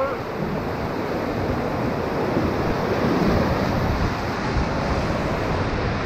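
Whitewater rapid rushing around an inflatable raft: a steady, loud wash of churning river water.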